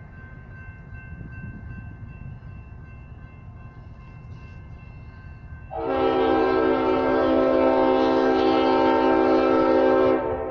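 Leslie RS-5T five-chime air horn on an approaching Norfolk Southern diesel locomotive, sounding one long, steady chord blast that starts about halfway through and cuts off suddenly near the end.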